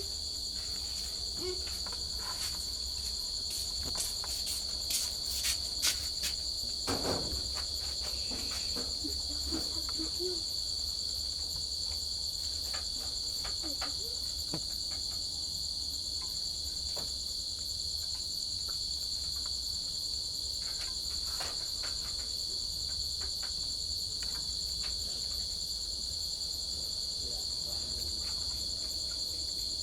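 Crickets chirping continuously in a steady high-pitched trill, with a few sharp clicks about four to seven seconds in.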